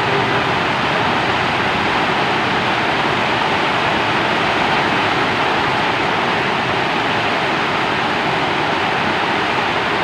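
Rain falling steadily: a dense, even hiss in which no single drops stand out.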